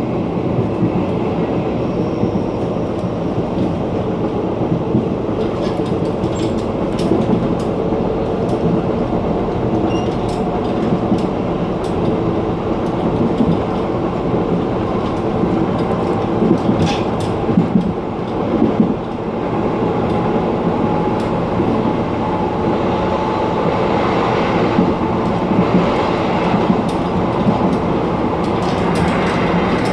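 Gangway between cars of a Puyuma Express tilting train running at speed: a steady rumble of wheels on track, with scattered sharp clicks and rattles from the car connection and a faint steady whine in the second half.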